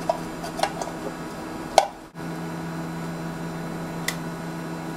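Small clicks and knocks of circuit boards and a plastic-and-metal instrument case being handled as the boards are pushed back into the case, with one sharper click about two seconds in. A steady low hum runs underneath.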